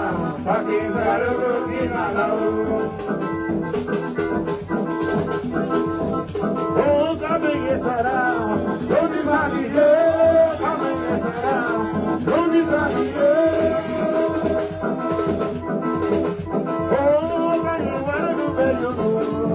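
Latin party music with singing and brass, played loud with a steady beat.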